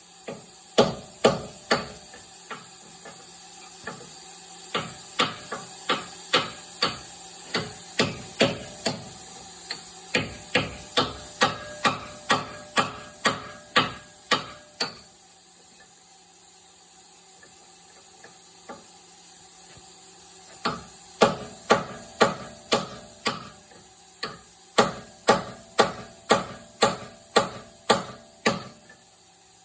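A hammer striking a big bolt used as a drift to knock plasma-notched bushings out of a skid steer's pin bore. Two runs of sharp blows at about two a second, with a pause of several seconds in the middle.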